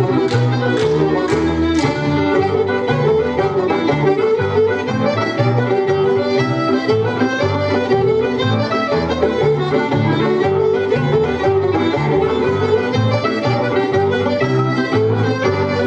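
Fiddle-led American folk dance tune with plucked-string backing over a steady bouncing bass. During the first two seconds, sharp hand claps come about twice a second over the music.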